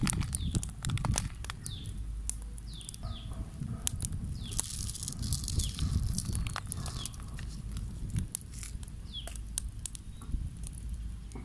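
Coarse salt being sprinkled over whole fish lying on large leaves, the grains ticking and pattering in scattered clicks, while small birds give short, falling chirps now and then. A low rumble runs underneath.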